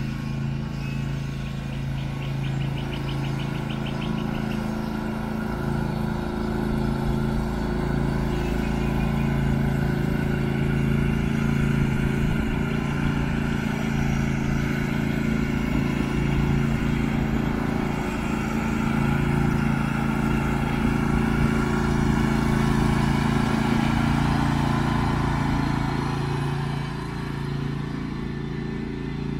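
John Deere LA135 lawn tractor engine running steadily while the tractor is driven, getting a little louder in the middle and easing off near the end.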